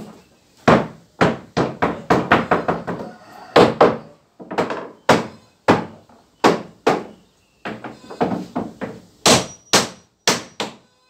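Hammer blows on wooden floorboards as the planks are knocked into place: irregular sharp knocks, some in quick runs of three or four, with a short hollow ring from the boards.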